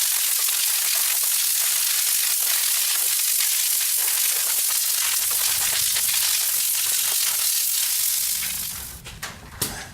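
Compressed-air blow gun hissing steadily as air is blasted over a wet mountain bike to dry it, with a low rumble joining about halfway. The hiss stops about a second before the end, followed by a few clicks.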